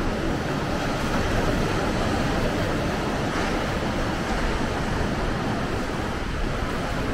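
Steady rushing of Gulf of Mexico surf breaking along the beach, mixed with wind rumbling on the microphone.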